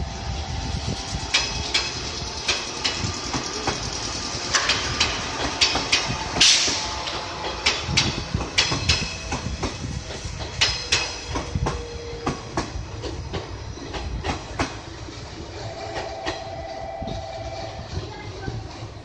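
JR Kyushu 415 series electric train pulling out of the station and running past, its wheels clicking over the rail joints in a steady clickety-clack. There is a brief high-pitched burst about six and a half seconds in, and the sound eases off as the last cars go by.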